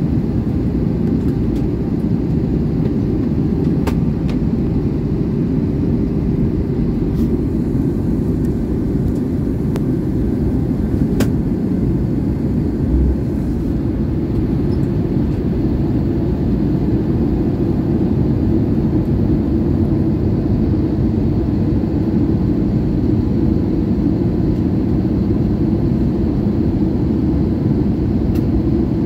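Steady airliner cabin noise at a window seat in flight: turbofan engines and rushing air making an even, low rumble. A brief low thump about halfway through and a few faint ticks sit on top.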